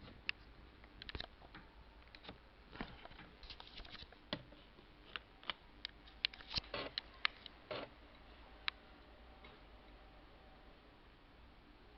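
Scattered light clicks and taps from handling a laptop and its keys, bunched most thickly about six to eight seconds in. A faint steady hum sets in about eight seconds in.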